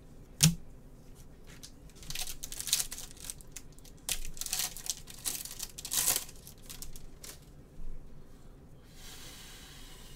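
A sharp knock, then a plastic trading-card pack wrapper being torn open and crinkled in several bursts of rustling.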